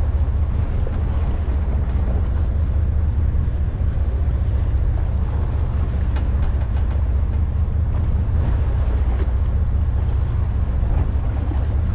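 Wind buffeting the microphone in a steady low rumble, over water washing along the side of a boat at sea.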